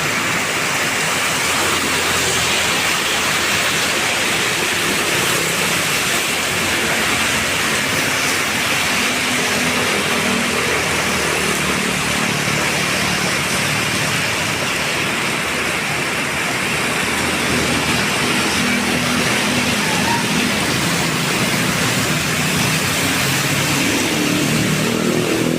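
Heavy rain falling steadily, with the low hum of a passing vehicle's engine coming and going under it.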